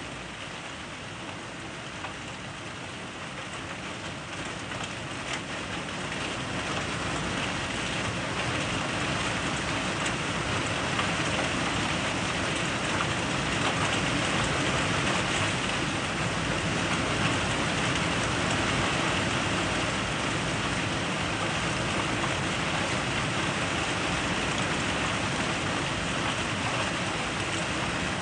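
Rain falling in a thunderstorm. It builds over the first several seconds into a heavier, steady downpour.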